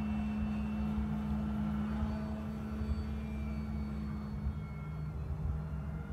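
Electric motor and propeller of an FMS Pitts radio-controlled biplane flying overhead: a steady hum that grows a little fainter near the end. Gusty low wind rumble on the microphone underneath.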